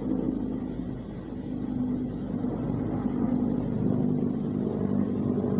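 Helicopter flying overhead, a steady low drone that grows gradually louder.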